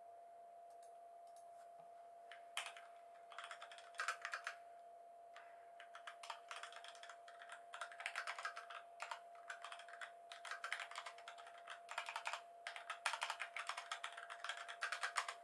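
Typing on a backlit computer keyboard: quick runs of key clicks in bursts with short pauses, starting about two and a half seconds in.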